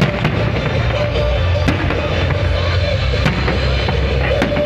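Fireworks display: several sharp bangs of bursting and launching shells, a second or so apart, over loud music and a steady low rumble.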